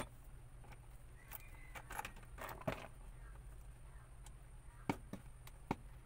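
Hands handling electrical wires and pliers at a plastic junction box: light rustling with a handful of sharp clicks, over a steady low hum.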